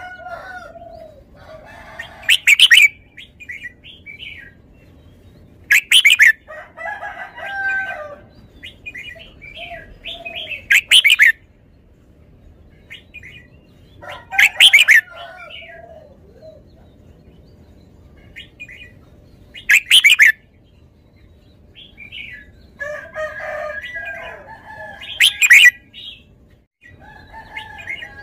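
Red-whiskered bulbul singing: six loud, short, bright phrases that come every four to six seconds, with softer, lower chirps and warbles between them.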